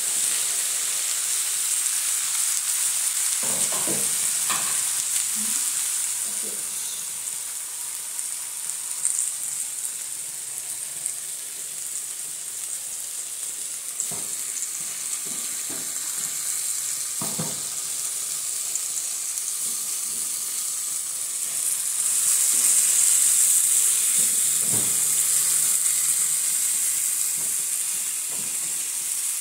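Chicken pieces sizzling in a frying pan as sliced onion and sweet peppers are stirred in. Now and then the utensil knocks against the pan, and the sizzle grows louder about two-thirds of the way through.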